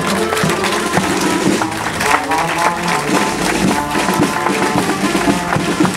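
Marching band playing in the street: drums beating steadily under a held, sustained melody.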